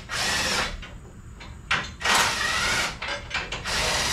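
Hands and tools working parts under a vehicle's front bumper, making three bursts of rasping, scraping noise, the middle one the longest.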